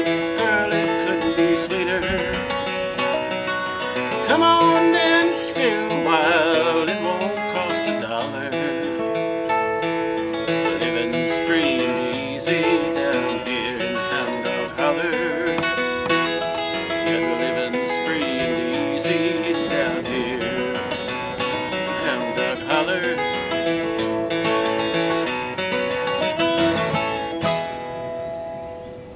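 Steel-string acoustic guitar with a capo, played with a man's singing over it; near the end the last chord rings out and fades.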